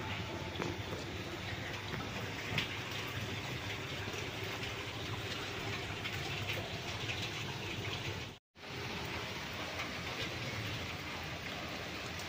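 Heavy rain falling steadily, with scattered drop ticks; the sound cuts out for a split second about eight seconds in.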